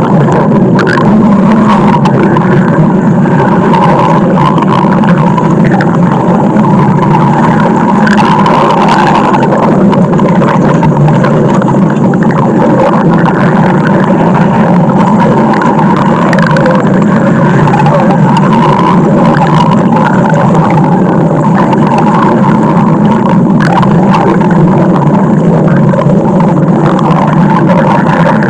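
A stomach growling: a loud, unbroken rumbling gurgle.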